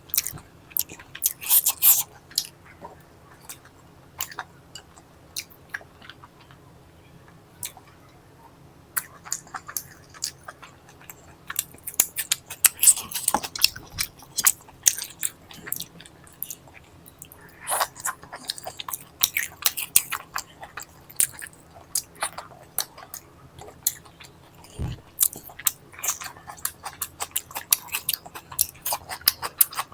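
A person chewing and biting food close to the microphone, in clusters of sharp mouth clicks and smacks, with a lull of several seconds near the start.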